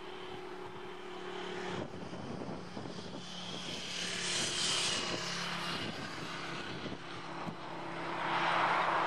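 Airbus A350 XWB's Rolls-Royce Trent XWB jet engines running at taxi power: a steady hum with a high turbine whine, growing louder toward the end as the aircraft passes.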